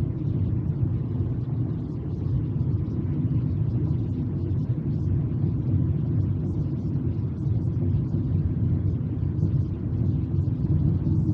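Steady low road and engine rumble inside a moving car's cabin, with no distinct events.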